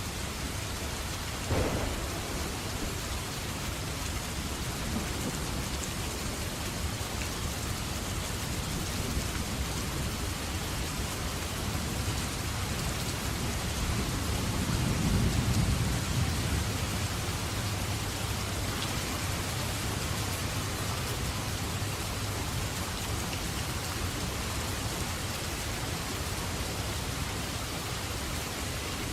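Steady rain falling, with a sharp crack of thunder shortly after the start and a deep roll of thunder swelling and fading near the middle.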